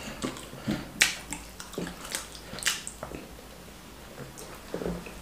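Eating sounds: several sharp, wet mouth smacks and clicks with soft chewing between them, the loudest smack about a second in.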